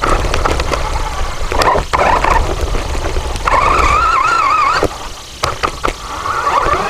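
Small RC ground robot driving over rough ground: a heavy rumble from its wheels and drive, with scattered sharp knocks. About halfway through, a wavering high squeal lasts for a bit over a second.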